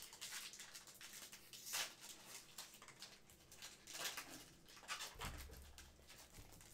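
Faint rustling with light scattered clicks as trading cards and a foil pack wrapper are handled, the loudest rustle about two seconds in.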